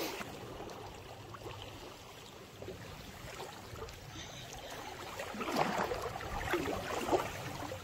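Sea water lapping and trickling among the breakwater's rocks. A few louder rustles and faint voice-like sounds come in the last two seconds.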